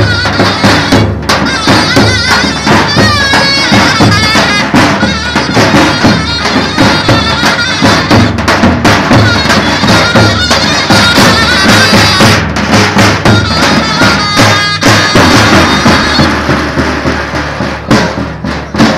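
Davul and zurna playing a Turkish folk wedding tune: a reedy, ornamented zurna melody that wavers in pitch over regular drum strikes, fading near the end.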